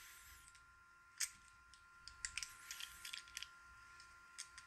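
Faint metallic clicks and scrapes of a rake pick and tension wrench working the pin tumblers of a Master Lock No. 1 padlock, with one sharper click about a second in.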